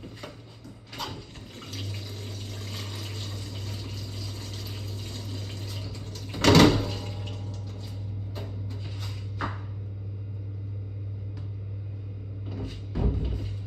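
Water running from a tap into a sink, a steady rush with a low hum under it. There is a loud knock a little before halfway and a smaller one near the end.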